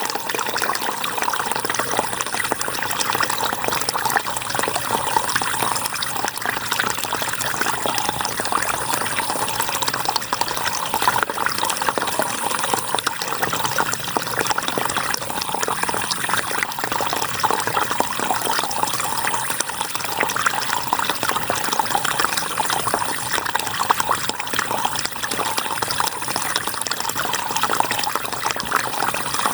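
River water flowing and splashing in a steady, unbroken rush.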